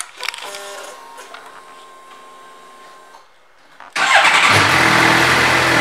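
Ignition of a 2013 Suzuki GSX-R750 switched on with a click, followed by a steady hum of about three seconds from the fuel pump priming. About four seconds in, the inline-four engine starts at once and settles into a steady idle through its aftermarket Yoshimura exhaust.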